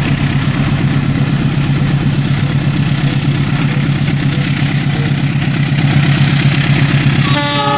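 Diesel-electric locomotive engine running steadily under load as it hauls a train past, a deep hum with a fast even throb. Near the end its horn starts to sound, a held, multi-note blast.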